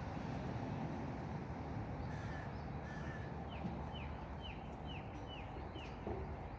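A bird calling a quick series of six short, falling notes, a bit more than two a second, starting about halfway through. It sounds over a steady low background rumble.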